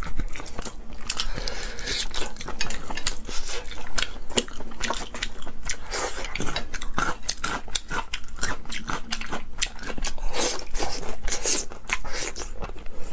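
Braised pork trotters being eaten close to the microphone: chewing and biting, with a steady run of sharp mouth clicks.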